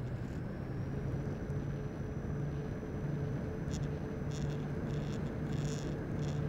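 Radio-controlled model airplane in flight, heard from its onboard camera: steady airflow rush over a low motor hum. Several short high crackles come in the second half.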